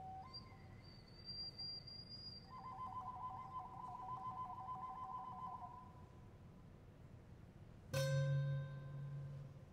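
Pure, steady whistle tones from a small wind instrument held at the lips, changing pitch; through the middle two notes sound together with a slight warble, then fade. Near the end a low grand-piano note is struck and rings on.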